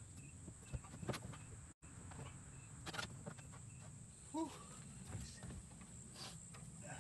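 Faint, scattered knocks and taps of hands and tools working on the wooden seat box of a plywood outhouse, with a short call that rises and falls in pitch a little past halfway.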